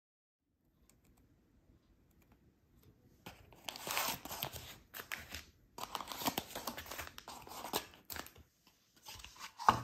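Paper and cardboard packaging rustling and crinkling as a carton of individually wrapped momiji manju cakes is opened and the cakes are pulled out. It begins about three seconds in, in irregular bursts, and a single sharp knock comes near the end.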